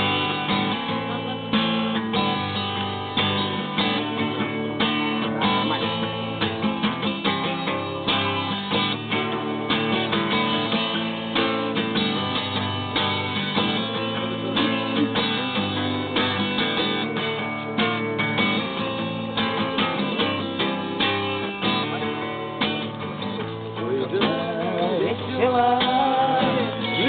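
Acoustic guitar strummed steadily as the instrumental introduction to a campfire song. A voice comes in near the end.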